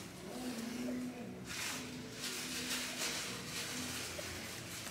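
Quiet shop ambience: a faint low hum with soft held tones and no distinct event.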